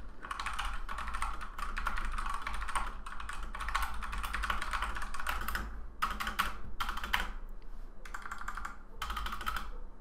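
Redragon K552 mechanical keyboard with Redragon's own red (linear) switches being typed on. A fast, continuous clatter of keystrokes for about six seconds, then slower, separate key presses in short clusters.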